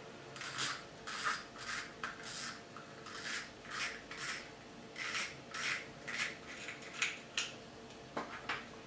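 The front drag knob (spool nut) of a Ryobi Excia MX 300 spinning reel being unscrewed by hand, giving a short rasp with each twist, about two a second. The rasps stop shortly before the end as the knob comes off.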